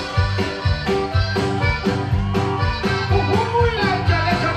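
Live Tejano conjunto band playing the instrumental opening of a song: a diatonic button accordion over electric guitar and a steady drum beat.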